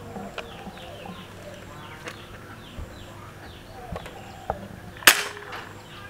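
A single sharp crack from an air rifle firing an 11-grain .177 pellet through a chronograph, about five seconds in. Birds chirp in short falling notes, with a few faint clicks, before the shot.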